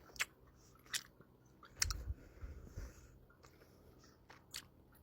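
A person chewing and biting a sweet close to the microphone, with a handful of sharp, crunchy clicks spread unevenly through the chewing.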